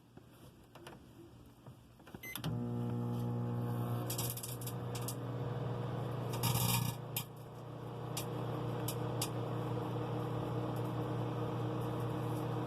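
Microwave oven switching on with a click about two seconds in, then a steady electrical hum. Over the hum come sharp crackles and snaps from about four seconds in: water-filled Orbeez beads sparking inside.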